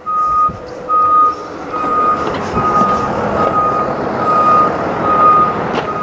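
Vehicle reversing alarm beeping steadily, a single-pitched beep repeating a little faster than once a second, over steady vehicle noise.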